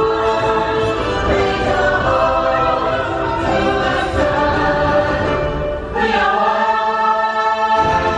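Music with a choir singing sustained chords, the harmony shifting to a new held chord about six seconds in.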